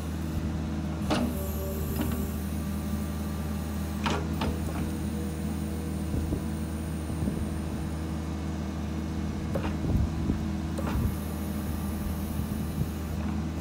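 Kubota KX71-3 mini excavator's diesel engine running steadily while its hydraulics slew the upper structure and work the boom and bucket, with a few sharp clunks from the working gear.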